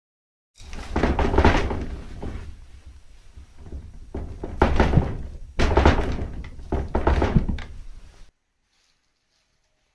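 Irregular thumps, knocks and rattles of a wood-and-paper shoji sliding screen as kittens pounce and scrabble against it, with louder clusters of knocks around 1.5, 5 and 7 seconds in; the sound stops abruptly near the end.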